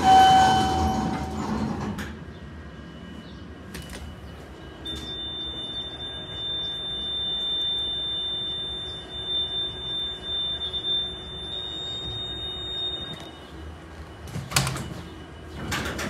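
Elevator arrival chime, a single clear ding at the start, followed by the hum and door mechanism of a KONE hydraulic elevator car as its sliding doors work. A steady high-pitched tone sounds for about eight seconds in the middle, and there is a sharp clunk near the end.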